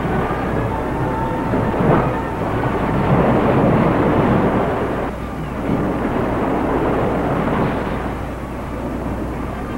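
Beach ambience: a rushing wash of surf and crowd noise that swells and fades, loudest from about three to five seconds in.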